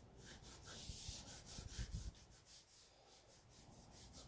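Graphite pencil scribbling on sketch paper: quick, repeated scratchy strokes, faint throughout. A few low dull bumps come about one to two seconds in.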